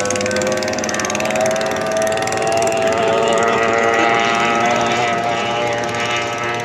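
Engine of an F1 racing powerboat running at high revs as the boat speeds across the water: a steady whine of several pitched tones that wavers slightly in pitch.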